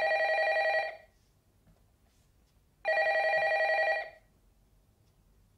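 Landline telephone ringing with a fast trilling tone: the end of one ring, then a full ring about a second long some three seconds later, with quiet between.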